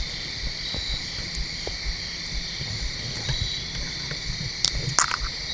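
Late-summer evening insect chorus, mostly crickets: a steady high-pitched shrill, over a low uneven rumble. Two sharp clicks sound close together near the end.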